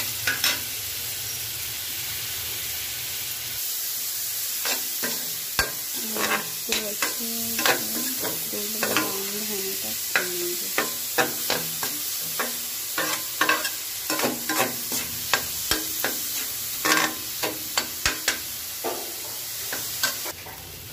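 Chopped onions sizzling in hot oil in a metal kadhai, being fried toward golden brown. A slotted metal spatula stirs and scrapes them, clinking against the pan again and again. The hiss drops somewhat near the end.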